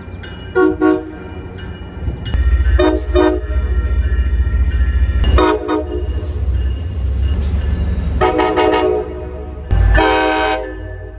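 Locomotive air horn sounding a sequence of chord blasts: two pairs of short toots, then three longer blasts, the last two the longest. A low rumble of the moving train runs underneath.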